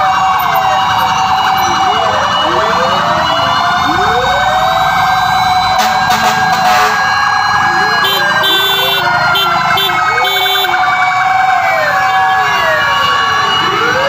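Sirens of several fire trucks passing in convoy, many wails overlapping and rising and falling out of step. Between about eight and eleven seconds in, a run of short repeated beeps joins them.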